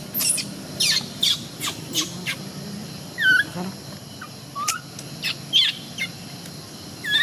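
Baby macaque crying: a run of about a dozen short, high-pitched squeals, most falling in pitch.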